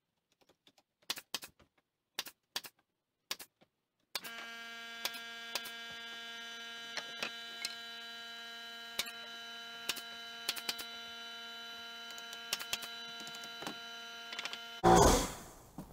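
Pneumatic framing nailer firing nails into 2x lumber as a wall header is nailed together: a series of sharp, separate shots. A steady motor hum starts about four seconds in and stops just before a single loud knock near the end.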